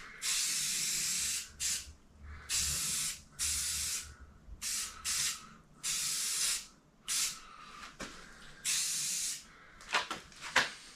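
Rust-Oleum aerosol spray paint can hissing in a run of short bursts, from a fraction of a second to over a second each, as a light misting coat is applied.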